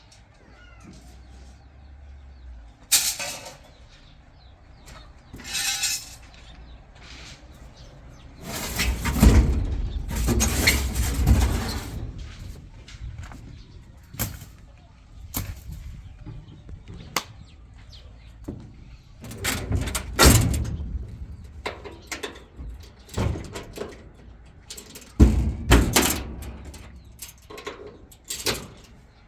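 Irregular knocks and bangs, some sharp and single, with a longer stretch of heavy clattering and rumbling about nine to twelve seconds in.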